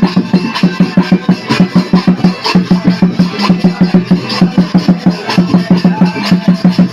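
Santali folk music driven by a fast, even drum beat, with a steady low droning tone beneath the strikes.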